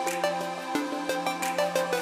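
Background music: a melody of short notes over a quick, steady beat.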